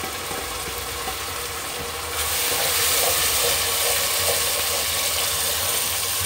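Ginger, garlic and green chili paste sizzling in hot olive oil with browned onions, the sizzle growing louder about two seconds in as it is stirred with a wooden spoon.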